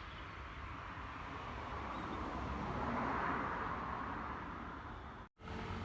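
A vehicle passing by: a rushing noise that builds to a peak about three seconds in and then fades. The sound cuts out completely for a moment near the end.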